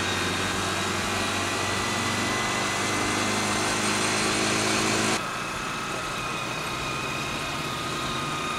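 Motorcycle engine running under way, its pitch creeping slowly upward, then dropping suddenly in level about five seconds in and carrying on quieter.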